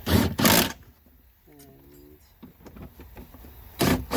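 Hand ratchet clicking as it tightens a small 10 mm bolt: two quick strokes at the start and two more near the end.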